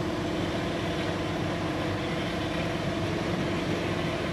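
A two-wheeler's engine running steadily at an even pitch.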